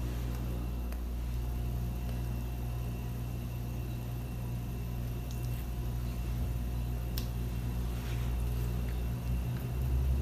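A steady low mechanical hum with a few faint light clicks.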